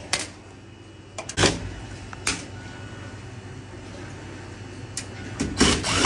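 Scattered metallic clicks and knocks as Phillips screws are taken out of a microwave's sheet-metal cabinet and set down on its top, over a low steady hum.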